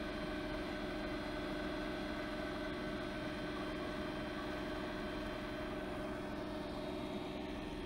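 Electric outboard built from a 2,000-watt e-bike motor in a Sears outboard shell, running steadily at part throttle while the boat is under way: an even hum of several held tones over the rush of water from the propeller wash and wake.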